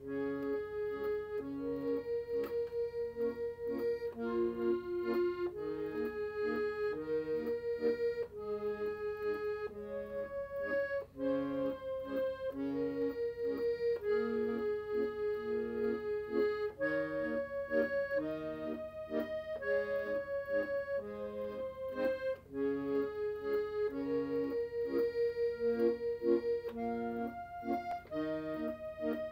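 Piano accordion played solo: a melody of held notes on the right-hand keyboard over a rhythmic accompaniment of short repeated chords from the left-hand bass buttons.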